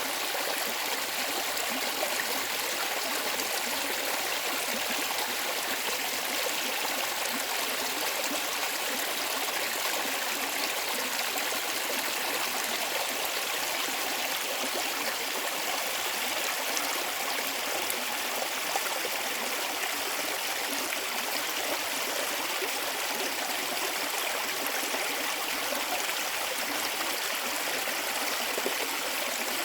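A mountain stream (계곡 시냇물) running over rocks: a steady, even rush of flowing water with small splashes and gurgles.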